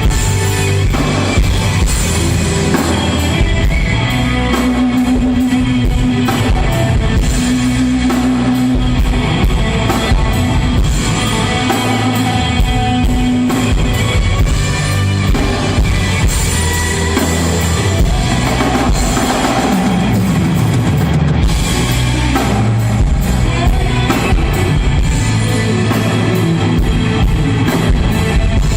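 A live rock band playing: drum kit with steady cymbal and snare hits, and electric guitars.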